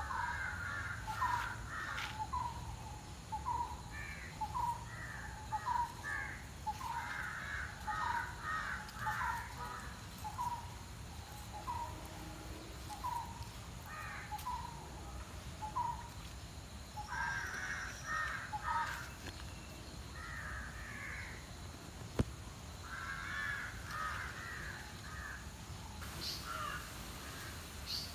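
Animal calls: a short rising call repeated about once a second for most of the time, with bursts of harsher, rougher calls in between. A low steady background hum runs beneath, and there is a single sharp click about two-thirds of the way through.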